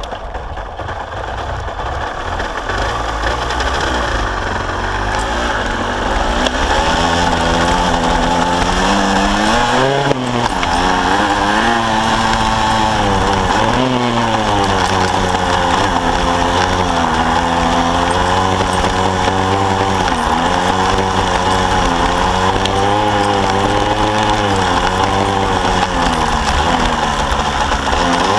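Kawasaki KSR-II's two-stroke single-cylinder engine heard from a bike-mounted camera as it is ridden off-road. The engine note builds over the first few seconds, then rises and falls repeatedly with the throttle and gear changes, dropping sharply a few times.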